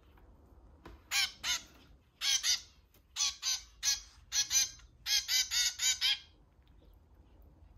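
Young zebra finch giving a run of about fourteen short, repeated begging calls, in pairs and quick runs, while it is hand-fed from a dropper.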